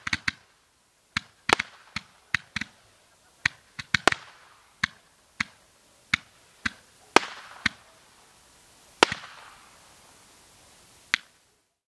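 World Class Bubble Blaster Roman candle firing its shots: a string of about twenty sharp pops at uneven intervals, a few trailed by a short hiss, thinning out toward the end with a last pop near the end.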